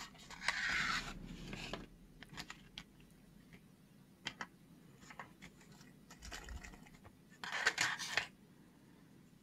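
Clear plastic blister packaging rustling and crackling in the hands as a pack of 1:64 scale alloy model wheels is opened, with scattered light clicks and ticks. There are two longer bursts of rustling, one from about half a second in and one near the end.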